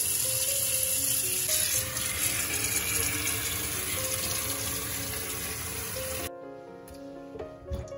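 Tap water running in a steady stream into a stainless steel kitchen sink and down the drain, with background music underneath. The water stops abruptly about six seconds in, leaving the music and a few drips.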